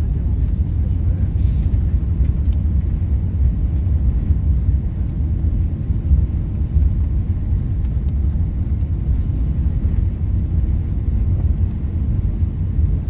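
Steady low rumble of engine and airflow noise heard inside the cabin of an Airbus A380-800 airliner around landing.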